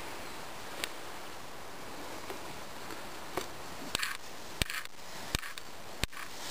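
Steady hiss with sharp cracks and snaps, a few early on and then at a steady walking pace of about one every 0.7 s from about four seconds in, like boots stepping over dry felled branches and brash.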